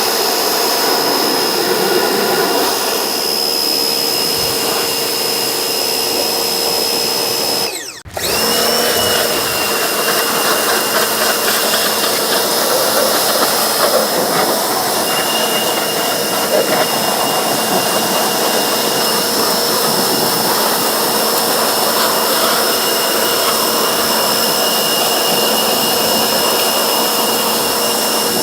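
Pressure washer running, a steady loud spray hiss with a constant motor whine. It stops for a moment about eight seconds in, then starts again.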